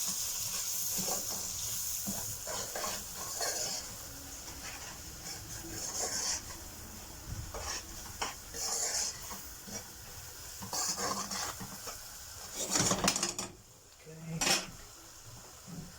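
Onions and ground spices frying in a pan, sizzling steadily while a spoon stirs and scrapes through them in repeated strokes every second or two. The sizzle thins out near the end.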